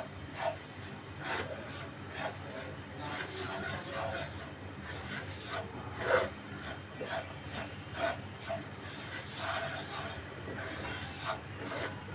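A spatula scraping and stirring across a non-stick wok, an irregular run of rubbing strokes, one stronger stroke about six seconds in. Flour is being lightly roasted in butter for a sauce base, stirred so it does not colour.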